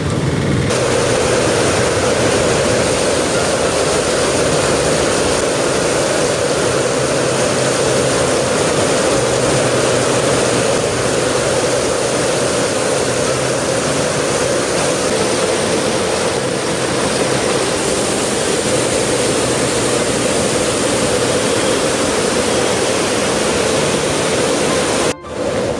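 Steady rushing noise of a river in flash flood with monsoon rain falling, broken by a brief gap near the end.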